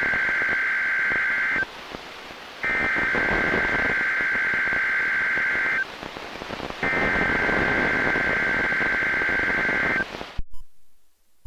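NOAA Weather Radio SAME digital header: the first buzzing burst of data tones ends about a second and a half in, then two more identical bursts of about three seconds each follow with a one-second pause between, all over radio static. This three-burst header is the coded signal that comes before an alert or test broadcast. The audio cuts off sharply near the end.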